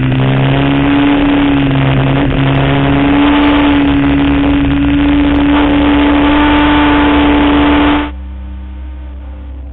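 2004 Honda RC51's V-twin engine running at high revs under steady throttle, its pitch holding nearly constant with a slight rise, over heavy wind rush on the onboard camera. About eight seconds in it cuts off abruptly and soft ambient music takes over.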